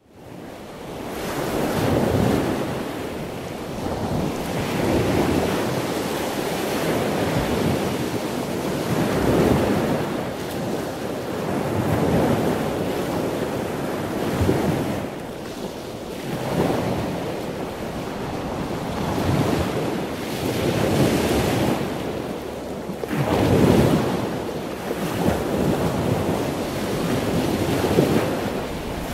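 Wind buffeting the microphone over a choppy sea, with waves washing and splashing against the boat, swelling and falling in irregular surges every few seconds.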